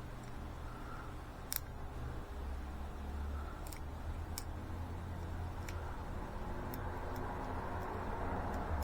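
A homemade pick and tensioner working the wafers of a small cabinet wafer lock: scattered small metal ticks, about eight over the stretch, over a low steady hum.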